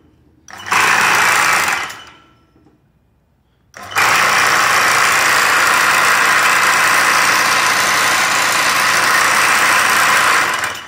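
Home-made reciprocating power hammer, driven by a drill-press motor through a belt and switched by a foot pedal, running on a very small stroke: a short burst of about a second and a half, then, about four seconds in, a steady run of some seven seconds that stops near the end.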